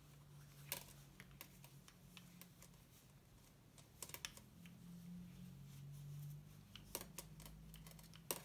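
Wooden circular knitting needles faintly clicking and tapping together while knitting stockinette in chunky yarn: a handful of light clicks a second or more apart, over a faint low hum.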